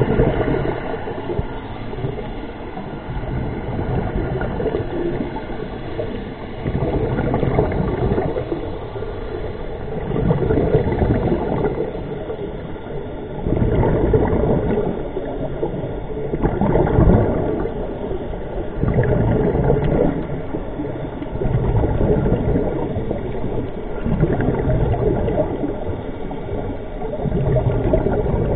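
Scuba breathing heard underwater: exhaled regulator bubbles gurgling in swells about every three seconds, over a steady wash of water noise.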